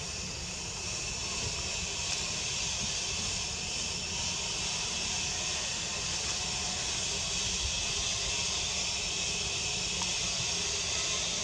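Steady high-pitched drone of insects in the forest over a low rumble, with no calls from the monkeys.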